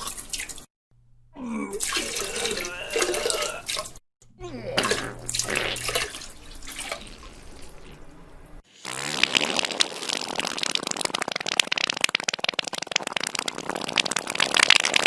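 Diarrhea sound effect: wet, spluttering, gurgling bursts in three takes with short breaks between them. From about nine seconds in comes a longer run of dense crackling, splattering wet noise.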